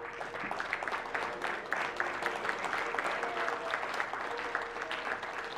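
Audience applauding steadily, with faint music underneath.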